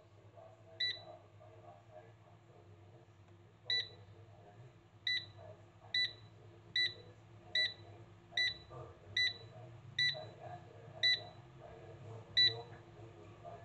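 Touch-panel control of a Kmart Anko 1.5 litre air fryer beeping once at each button press: about eleven short, high beeps spaced roughly a second apart as the cooking time is stepped up.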